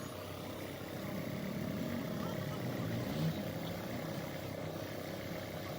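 A steady mechanical hum with a constant low drone and a faint steady tone above it.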